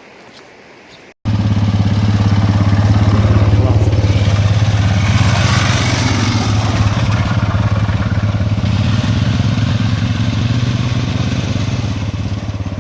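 Vehicle engine running steadily under way, a low even hum with road noise over it, starting abruptly about a second in after faint outdoor quiet.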